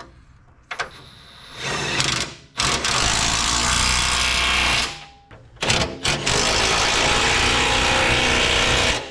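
Handheld power wrench running bolts on a car's sway bar mounting: a short burst, then two longer runs of several seconds each.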